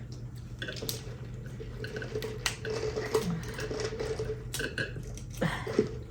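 Eating a saucy seafood boil: wet squishing and scattered clicks and cracks of crab shell being handled and pulled apart, with chewing, over a steady low hum.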